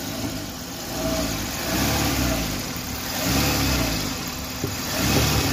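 Old-model Maruti Suzuki Wagon R petrol engine running and revved up and let fall back three times. This is a rev test after the loose evaporative canister purge hose was refitted, the cause of a noise on acceleration, and no extra noise stands out.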